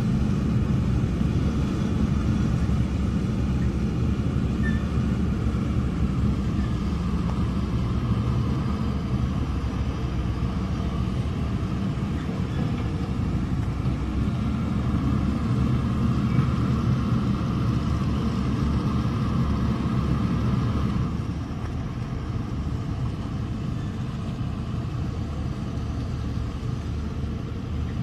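Diesel engines of Caterpillar hydraulic excavators running steadily under working load, a low rumble. It eases a little about three-quarters of the way through.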